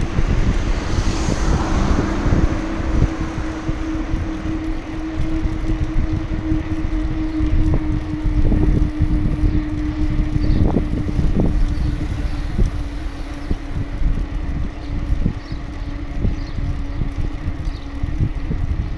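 Wind buffeting the microphone of a camera on a moving bicycle, a steady rumble with a low hum running underneath and a few short knocks around the middle.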